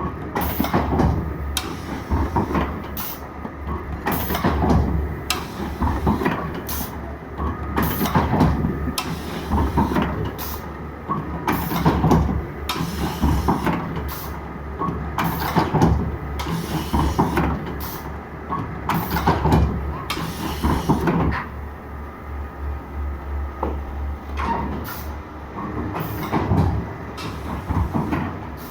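YASHINO three-knife book trimmer running: a steady low hum, broken by repeated sharp clunks and hissing noises at irregular intervals as the machine cycles.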